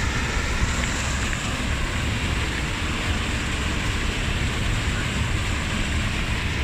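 Steady rushing of a rocky stream, with a low buffeting rumble of wind on the phone's microphone.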